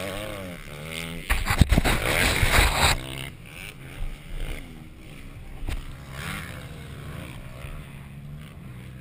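Motocross dirt bike engines revving up and down as riders pass on the track. A loud rushing blast of noise comes between about one and three seconds in, followed by fainter revving and a single sharp click.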